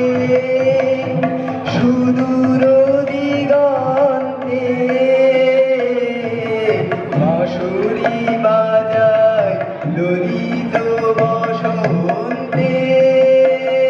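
Live music of tabla and acoustic guitar, with a sustained, wavering melody line running over the tabla strokes.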